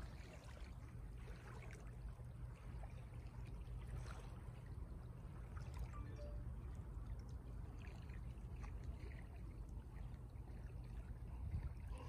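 Small waves lapping faintly at the shoreline, with a low, steady rumble underneath.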